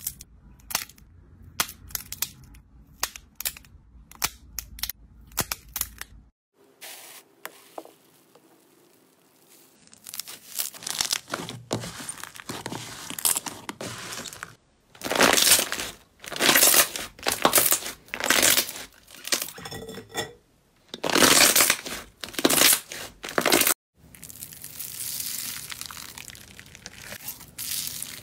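Hands squeezing, stretching and pressing slime. First come rapid sharp clicks and pops of trapped air, then a run of loud squishy presses about a second apart, and a steadier crackle near the end.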